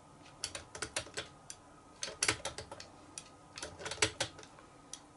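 Combination dial of an EIKO home dial safe being turned by hand, clicking in three quick runs of clicks about a second apart, as the combination is searched for by feel.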